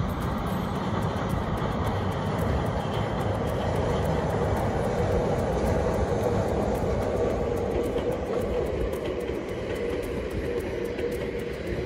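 Two-car electric train rumbling across a steel girder bridge, with a steady droning tone underneath. The sound is loudest about halfway through and eases off near the end as the train moves away.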